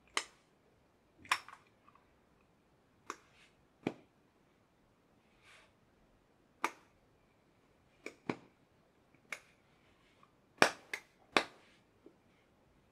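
About a dozen sharp, separate clicks and taps at uneven intervals, the loudest group coming close together near the end: a vape mod and its packaging being handled during unboxing.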